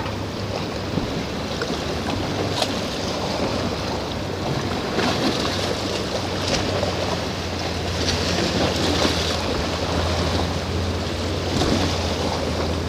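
Surf washing on the shore with wind buffeting the microphone, over a steady low hum that grows stronger about five seconds in.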